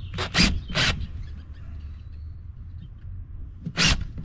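Cordless Makita drill in short trigger blips, its 7/32 bit cutting into a pilot hole in a jet ski's hull. There are three quick bursts in the first second, then one more near the end.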